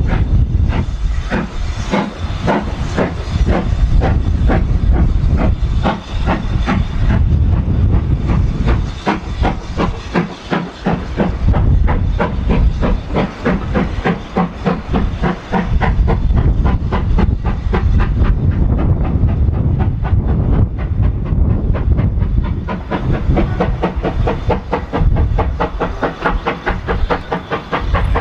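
Steam locomotive working hard as it pulls a passenger train away, a fast, even run of sharp exhaust beats with steam hiss over a heavy low rumble. The coaches clatter over the rail joints as they pass.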